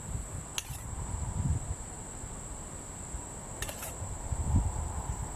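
Steady high-pitched drone of insects, with a low rumble underneath. A few light clicks of a spoon against a small metal bowl as diced apples are spooned out.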